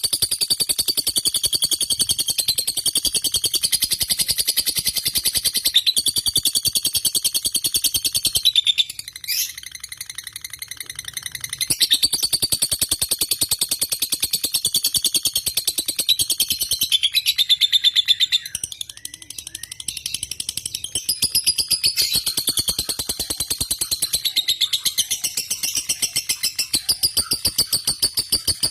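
Lovebird singing a long, rapid, high-pitched trilling chatter, nearly unbroken, with a brief pause about nine seconds in and another around eighteen to twenty seconds in.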